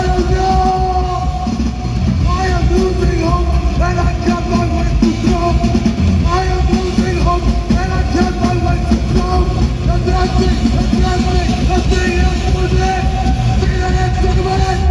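Live rock band playing loud, distorted punk rock with yelled vocals; the song stops abruptly at the very end.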